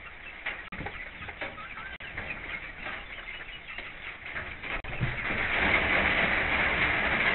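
Hens clucking softly, with small scratching and pecking clicks in the coop litter. About five seconds in, a steady hiss of rain on the coop grows louder and holds.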